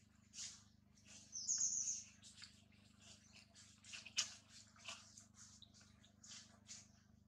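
Macaque monkey eating in grass: soft, irregular crunching and rustling as it chews and handles food, with a short high chirp about one and a half seconds in and a sharper click near the middle.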